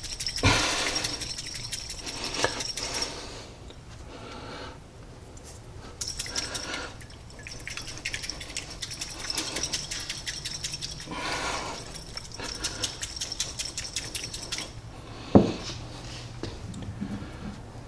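DuraCoat paint being stirred in a small mixing cup: rapid ticking and scraping against the cup in three spells, with one sharp knock a little before the end.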